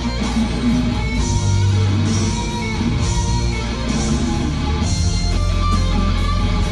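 Rock music led by electric guitar, with a steady beat about once a second.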